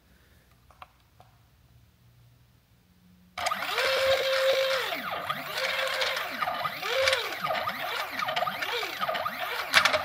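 Stepper motor of a home-built safe autodialer turning the combination dial of an old Yale safe lock. Its whine rises and falls in pitch as it speeds up, slows and reverses, about once a second, with the dial being jiggled back and forth under light tension on the handle. It starts about a third of the way in after a near-silent pause and stops near the end as the lock opens.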